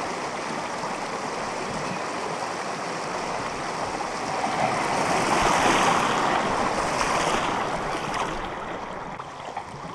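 Shallow rocky creek rapids rushing around a canoe as it is lined downstream: a steady water noise that swells louder about halfway through, then eases off.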